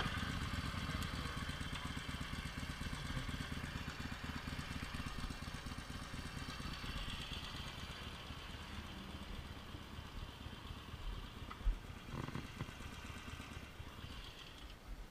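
A V-twin motorcycle engine idling steadily, its low firing pulses slowly growing fainter. There is a single sharp knock near the end.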